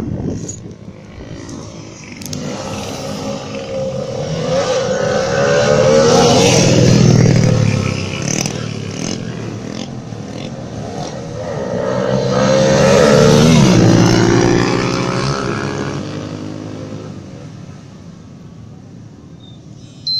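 Two loud passes of racing motorcycle engines, each rising in loudness and pitch and then falling away as it goes by, about six seconds apart.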